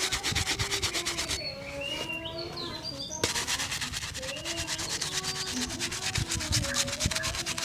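Leather shoe being brushed to a shine with rapid back-and-forth strokes, about nine a second, stopping about a second and a half in and starting again under two seconds later.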